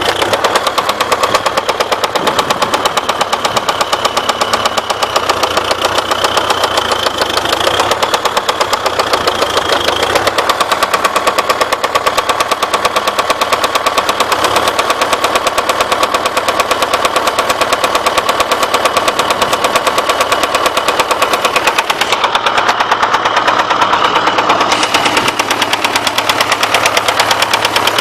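DT-75M crawler tractor's SMD-18 diesel engine running with a fast, even knock from the crankshaft end. The knock comes from spun connecting-rod bearings.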